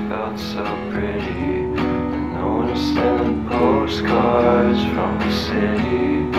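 Background music: a song led by strummed acoustic guitar.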